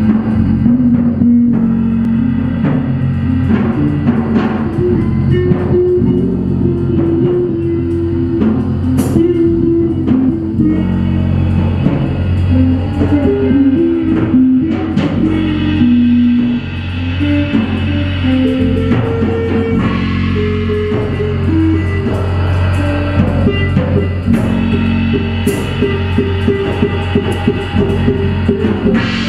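Live experimental instrumental music from a trio of six-string electric bass, electric guitar and drum kit: sustained bass and guitar notes shifting in pitch over busy drumming, loud and unbroken.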